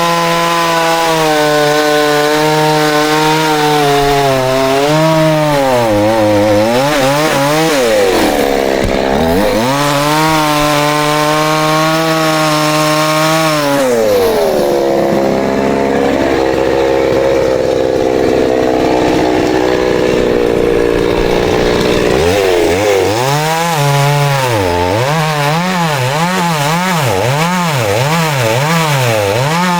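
Two-stroke chainsaw running at full throttle and cutting wood, its pitch sagging now and then under load. It drops back to a lower, steadier run partway through. Near the end it is revved up and down in quick blips, about one a second.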